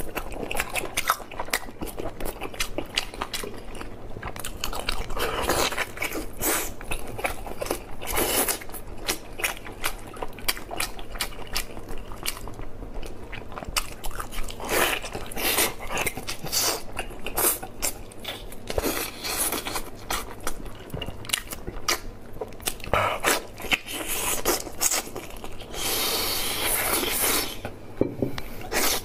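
Close-miked wet chewing, biting and lip-smacking as a man eats sticky, gelatinous braised beef hoof dipped in chili oil, with many irregular quick mouth clicks and squelches. A longer hiss-like slurp comes near the end.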